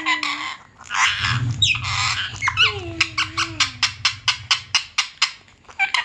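Indian ringneck parrot making squeaky, gliding chatter calls, then a fast run of sharp clicks, about six a second, through the second half.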